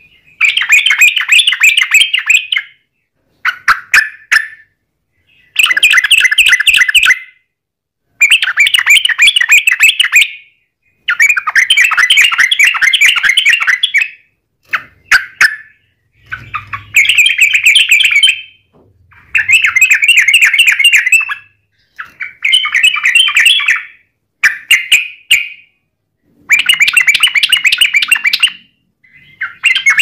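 Yellow-vented bulbul (trucukan) singing its rapid, long-running 'ropel' song: loud bouts of fast chattering notes, each one to three seconds long, repeated about a dozen times with short pauses between.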